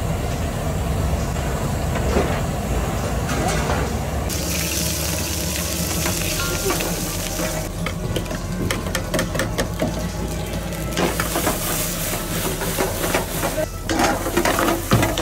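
Food frying and sizzling in a pan, with a utensil stirring and clicking against it. The sizzle swells about four seconds in and again past the middle, with a run of quick clatters between.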